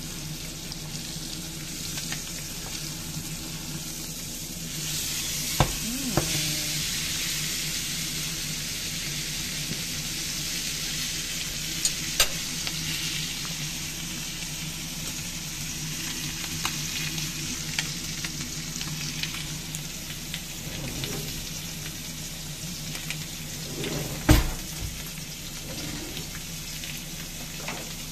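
Thick bone-in Angus beef steak sizzling in butter in a cast iron pan: a steady frying hiss that grows louder about five seconds in. A few sharp knocks come through it, the loudest near the end.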